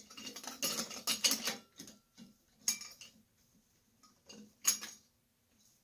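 Pliers gripping and twisting a stuck lamp socket on its steel pipe, which is clamped in a bench vise. The metal clicks and scrapes in a few short groups as the oiled threaded joint is forced.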